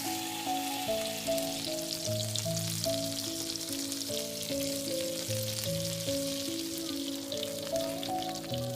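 Food frying in a pan: a steady sizzle with small crackles and pops, under background music of held, stepping notes.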